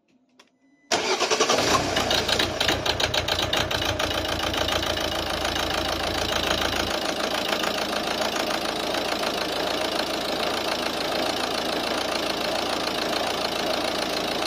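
Volvo V50's 1.6-litre diesel engine starting about a second in, uneven at first, then settling into a steady but rough idle. It runs rough because the newly fitted injectors are not yet coded to the ECU.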